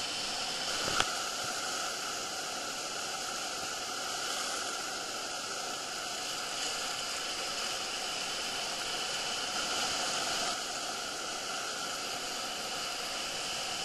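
Steady rushing hiss of whitewater churning in a river rapid, with a brief click about a second in.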